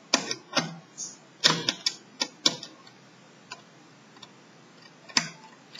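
Sharp clicks and taps of a small screwdriver working the screws in the plastic bottom case of a Lenovo Y450 laptop, in a quick run of clicks over the first two and a half seconds, a few faint ticks, then one loud click about five seconds in.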